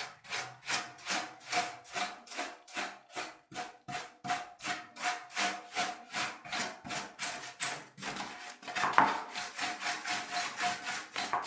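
A brush scrubbing dust off a laptop's base cover in quick, even back-and-forth strokes, about three a second.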